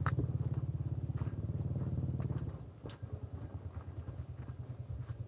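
A small engine running with a fast, even pulsing beat, loud at first and fading down after about two and a half seconds; a few light knocks on top.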